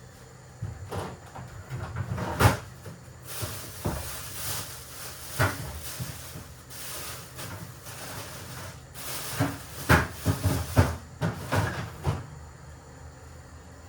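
Kitchen handling sounds: sharp knocks and clatter of items and cupboard doors being moved and set down, with a quick run of knocks between about nine and a half and twelve seconds in. A stretch of hissing noise runs from about three to nine seconds in.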